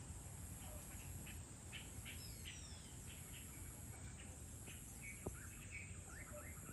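Faint evening bird calls: scattered short chirps with a couple of falling whistles, over a steady low rumble. A single sharp tick sounds about five seconds in.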